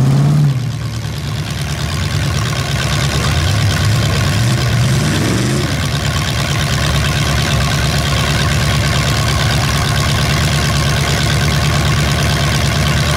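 Demolition derby pickup truck engines running loudly at a steady idle, with one engine revving up and dropping back about four to five seconds in.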